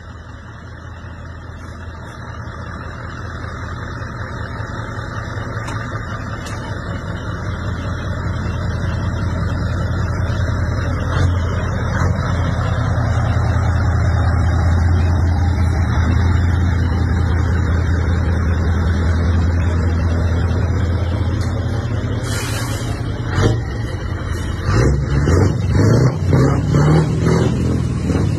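Scania truck engine running with a deep, steady rumble that grows louder as the truck pulls out toward the microphone. Near the end, a Scania V8 is heard up close, its exhaust burbling in an uneven, rhythmic pulse.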